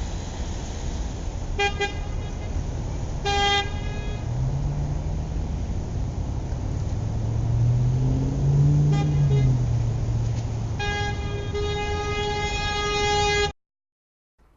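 Car horn honking over steady traffic rumble: a few short toots, then a long held blast that cuts off suddenly. A passing vehicle's engine rises and falls in pitch underneath about midway.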